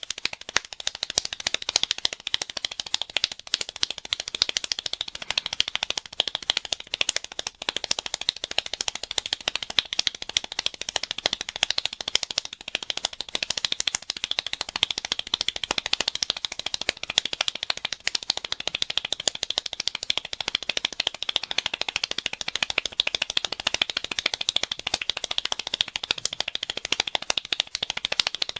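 One person speed-clapping, an unbroken, even rattle of hand claps at about thirteen claps a second.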